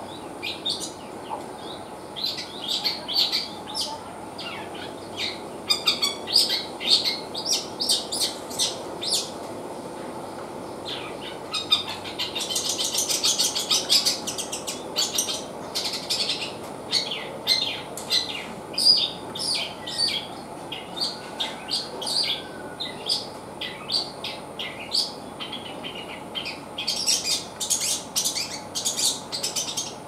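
Long-tailed shrike (cendet) singing: a string of short, sharp chirping notes, with a fast dense trill about twelve seconds in and another burst near the end.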